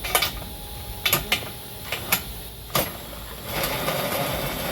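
Hand tools on tow-hitch nuts and bolts: several sharp metallic clinks of a wrench or socket against the steel, then about a second of rattling near the end as the nut is worked on.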